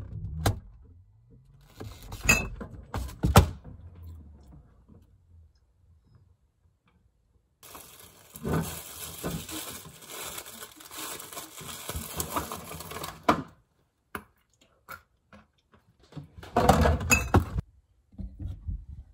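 Knocks and clatter of things being handled in a kitchen: a few sharp knocks in the first few seconds, a longer stretch of noise lasting several seconds in the middle, and another loud burst of clatter near the end.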